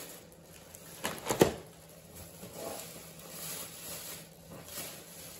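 Plastic carrier bags rustling as packaged snacks and biscuits are pulled out and handled, with two sharp knocks close together about a second in.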